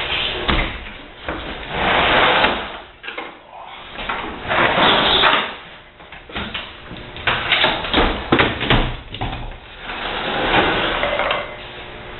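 Dishwasher parts being handled and pulled apart: three drawn-out scraping, sliding noises with a run of sharp clicks and knocks between them.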